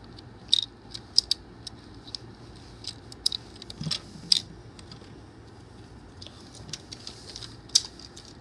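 Small plastic toy parts being handled: fingers working at a pink plastic toy ball to get tiny doll sunglasses out, giving irregular sharp plastic clicks and taps, about a dozen of them.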